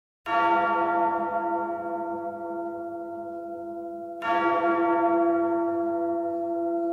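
A large bell tolling twice, about four seconds apart, each stroke ringing on and slowly fading.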